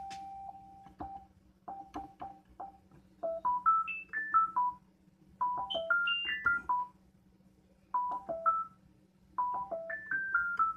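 Novation MiniNova synthesizer playing short, plinky sine-wave notes: a few repeated single notes, then three phrases of quick stepping runs up and down, with short gaps between them. A faint steady low hum sits underneath.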